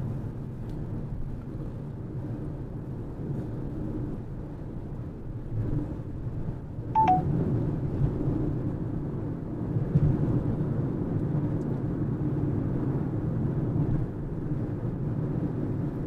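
Steady road and engine rumble inside a car cruising on the highway. About seven seconds in, a short electronic beep steps down in pitch.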